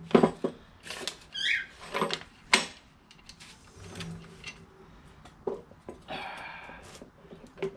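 Metal clicks and knocks as the nut and flywheel are worked off the crankshaft of a Predator 212 engine by hand, with a short squeak about a second and a half in.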